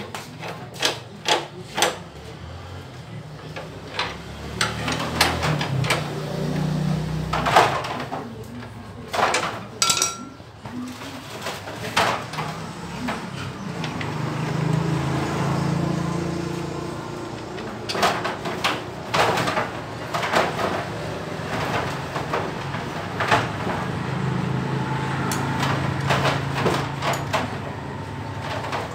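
Hand tools and metal parts clinking and knocking in irregular taps while working on a motorcycle engine. Under the taps, a low rumble swells and fades about three times.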